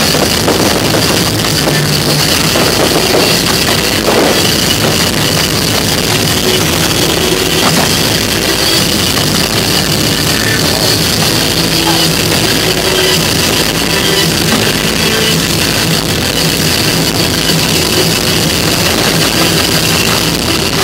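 Loud rock music with a drum kit playing over loudspeakers to accompany the fireworks, with the steady fizz and crackle of firework fountains and glittering comets mixed in.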